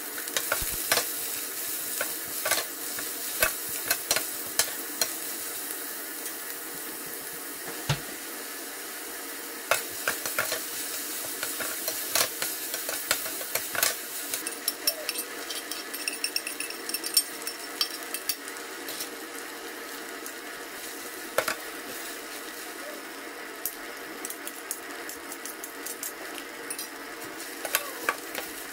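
Chopped onions and garlic sizzling in hot oil in a stainless steel pan while a metal slotted spoon stirs them, with frequent sharp clicks and scrapes of the spoon against the pan.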